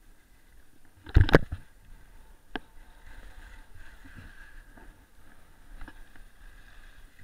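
Steady hiss of snow while sliding downhill. A loud clatter of knocks comes about a second in, a single sharp knock follows a little later, and fainter clicks come near the end, as the ride jolts over bumps.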